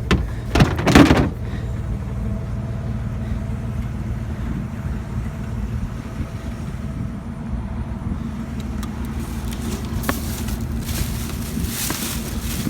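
A vehicle engine running steadily with a low hum, with a brief loud rustling clatter about a second in.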